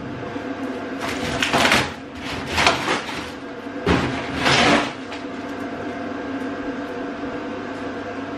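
Cardboard packaging being torn and pulled off plastic water tanks: three loud ripping, rustling sweeps in the first five seconds, then quieter handling over a steady faint hum.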